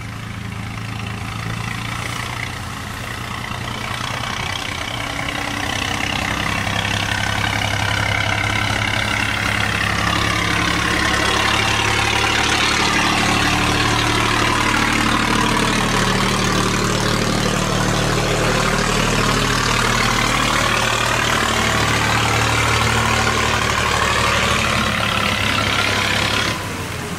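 Cargo boat's engine running hard as the boat pushes upstream through a sluice gate against a strong current, growing louder as the boat draws close and passes. Water rushes and churns around the hull.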